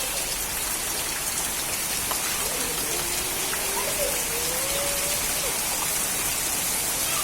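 Heavy rain falling steadily, a continuous even hiss. Midway through, a faint drawn-out rising call is heard.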